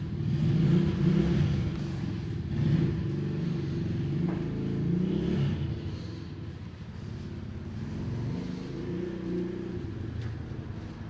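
A motor vehicle's engine running, its pitch rising and falling, louder in the first half and easing off after about six seconds.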